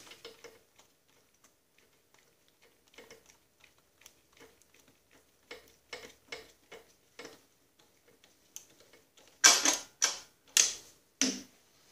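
Light, irregular metallic clicking as the clamp on a rubber axle boot is tightened, followed by a few louder clattering knocks of metal parts near the end.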